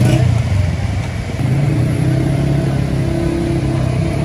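A motor engine running steadily, a low rumble with a faint higher hum held over it midway.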